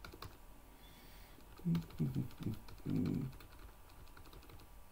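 Computer keyboard typing: scattered light key clicks, with a run of louder, duller keystrokes in the middle.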